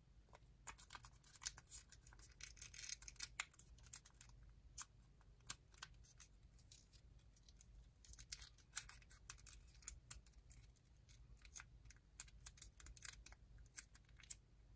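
A narrow strip of origami paper being folded and creased between the fingers: an irregular run of faint crinkles and crackles.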